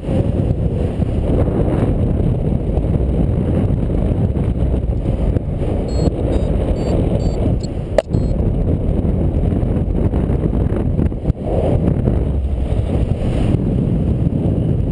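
Wind buffeting the microphone in paragliding flight, a steady loud rumble. About six seconds in comes a short run of quick, high electronic beeps, and a sharp click follows shortly after.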